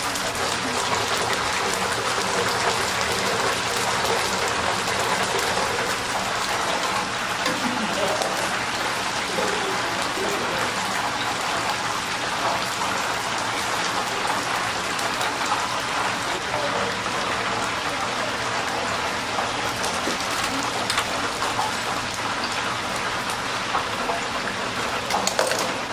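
Chicken karaage deep-frying in a commercial stainless deep fryer, the hot oil sizzling steadily. A few light clicks come through near the end.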